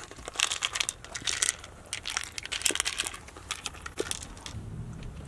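A pet crunching dry kibble from a plastic slow-feeder bowl: quick, irregular crunches and clicks, stopping about four and a half seconds in, after which a low hum takes over.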